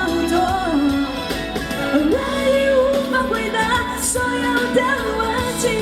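Female vocalist singing a Mandarin pop ballad live over musical accompaniment, the melody rising and falling through held notes.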